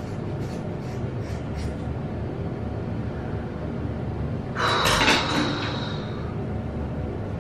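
Scissors snipping through hair a few times, faint. About five seconds in comes a loud, breathy gasp or exhale.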